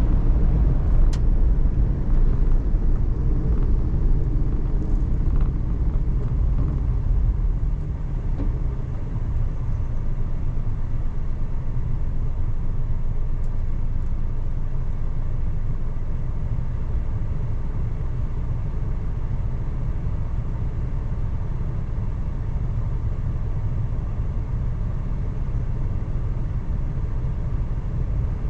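Suzuki Every DA17V kei van's cabin while driving: a steady low rumble of engine and road noise, easing slightly about eight seconds in.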